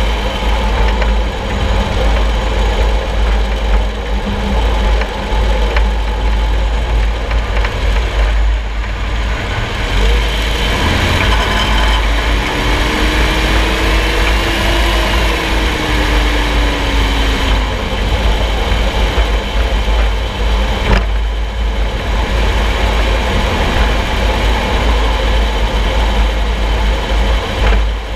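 Steady road and driveline rumble under a moving vehicle, heard from beneath its solid front axle, with strong low buffeting. One sharp knock from the running gear stands out about three-quarters of the way through.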